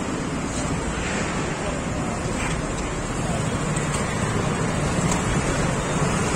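Steady noisy din of a crowd of onlookers murmuring together over the rumble of road traffic, with no single voice standing out.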